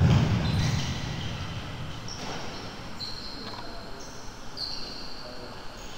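Sports shoes squeaking on an indoor court floor several times, with a dull thud right at the start.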